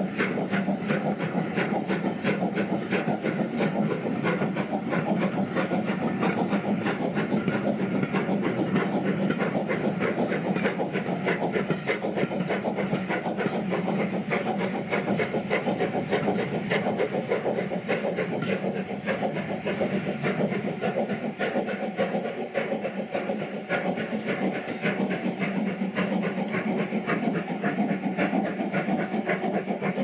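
Caprotti-valve-geared BR Standard Class 5 steam locomotive working hard with a train: a fast, steady rhythm of sharp exhaust beats, with the coaches' wheels clattering over rail joints.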